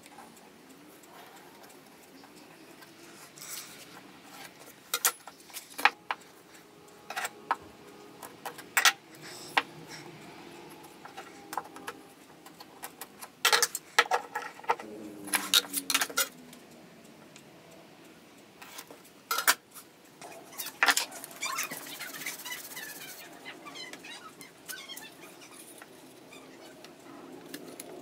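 Irregular clicks and clatter of small hard objects being handled and set down, with a short scraping hiss about two-thirds of the way through.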